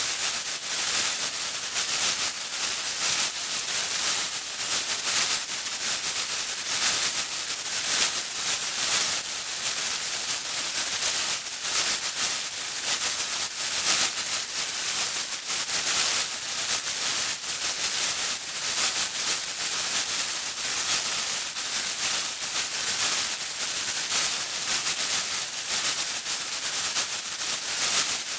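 Radio static: a steady hiss, high-pitched and crackling with rapid flutter, with a faint steady tone underneath.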